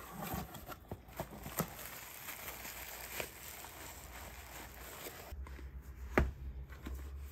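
Plastic bubble wrap crinkling and a cardboard mailer box rustling as it is opened and unpacked by hand, with scattered small clicks. One sharp tap about six seconds in, as a boxed planner is set down on a wooden tabletop.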